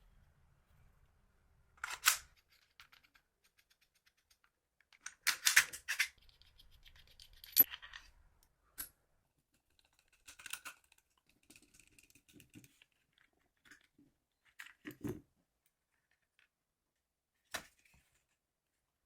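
Scattered short clicks, scrapes and rustles of objects being handled, a few seconds apart. The loudest come about two seconds in and again about five to six seconds in.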